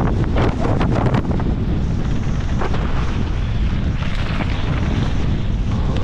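Enduro dirt bike engine running hard, heavily buffeted by wind noise on the microphone.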